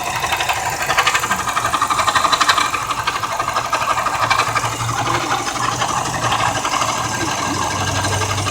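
2002 Subaru WRX turbocharged flat-four engine running with a loud, rapid, even mechanical noise from the timing-belt tensioner bearing, which is catastrophically failing.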